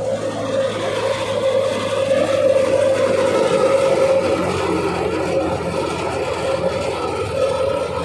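Wheat thresher running steadily, driven by a Massey Ferguson 240 tractor's diesel engine: a loud, even machine hum with a constant whine.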